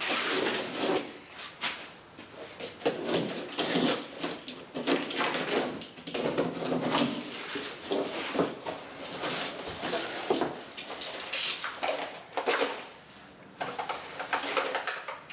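Cardboard box being opened by hand and its contents handled: irregular rustling and scraping of cardboard and packing, with small knocks.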